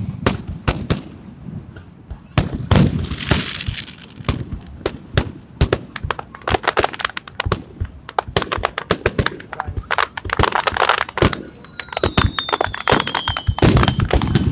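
Aerial fireworks display: shells banging and crackling, first in scattered bursts, then in a dense rapid barrage through the second half. A whistle falling in pitch runs over the bangs about eleven seconds in.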